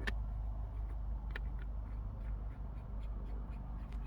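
A few light clicks and taps from a shift knob being handled on the shifter, over a steady low hum.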